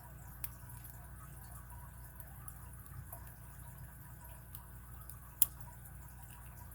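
Lock pick and tension wrench working the pins of an Abus 41/45 brass padlock: faint scattered ticks and scrapes, with a small click about half a second in and one sharp click a little after five seconds, over a steady low hum.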